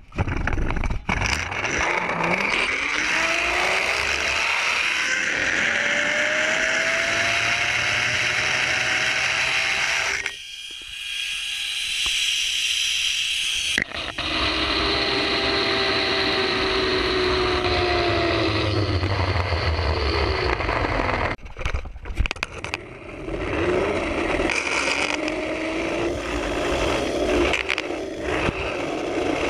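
Zip line trolley pulleys running along the steel cable, giving a whine that rises in pitch as the rider picks up speed and falls as they slow. This happens again after a short break near the end, over a steady rush of wind on the microphone.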